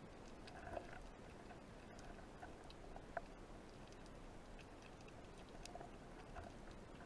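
Faint underwater ambience: a soft crackle of scattered small clicks, with two sharper clicks about one second and three seconds in.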